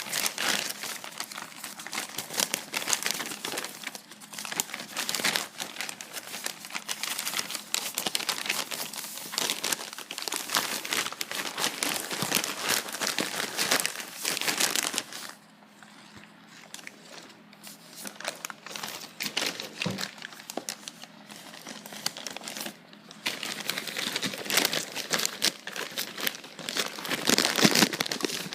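Plastic wrapping and packaging crinkling and tearing as it is pulled open by hand, with a quieter stretch in the middle.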